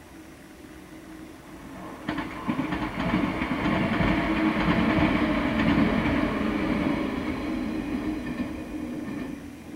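A JR West 115 series electric train passing along the line. A run of wheel clicks on the rails starts about two seconds in, the rumble is loudest in the middle, and it fades away near the end.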